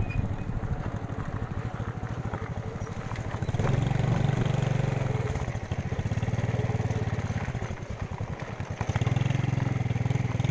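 A vehicle engine running with a fast, even low pulse, picking up speed and growing louder twice, at about a third of the way in and again near the end.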